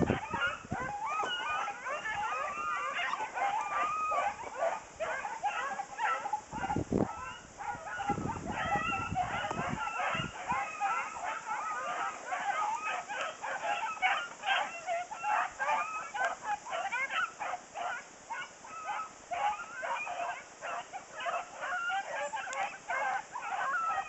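Hunting hounds baying and yipping without a break, many calls overlapping. Wind buffets the microphone a few times around the middle.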